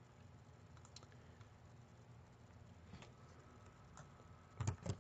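Clicking at a computer while text is selected and copied: a few soft clicks, then two louder clicks close together near the end, over quiet room tone.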